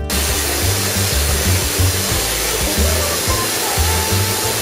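Tesla magnifier transformer firing a high-voltage arc onto a foil dish: a loud, steady buzzing hiss with a low hum underneath, starting abruptly.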